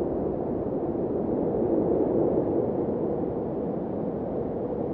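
Steady, even rushing noise like wind, low and muffled, with no distinct events.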